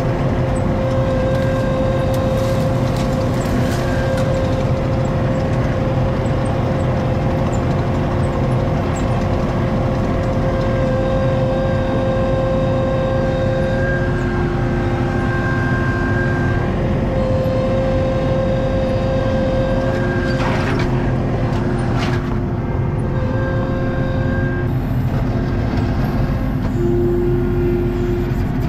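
ASV RT-40 compact track loader's diesel engine running steadily under way, heard from inside the cab, with a whine that changes pitch and drops in and out. Two short clatters about two-thirds through.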